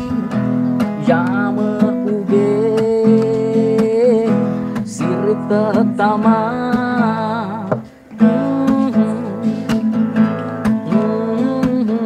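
A man singing while strumming an acoustic guitar, his voice gliding through long held notes over steady chords. Both break off briefly about eight seconds in.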